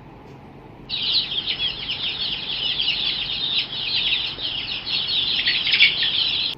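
Many birds chirping in a dense, overlapping chorus of short high-pitched calls, starting about a second in and stopping abruptly.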